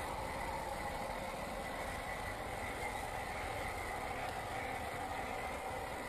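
Electric motor and gearbox of a 1/10-scale RC crawler whining steadily as it drives through grass.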